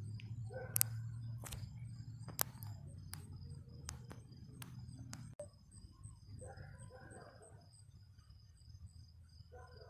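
High chirps repeating evenly, about two to three a second, over a low rumble that fades about halfway. Sharp clicks fall in the first half.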